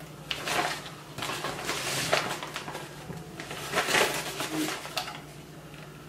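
Rustling and crinkling of a reusable shopping bag as a hand rummages through it and pulls out small boxed accessories, in several short bursts.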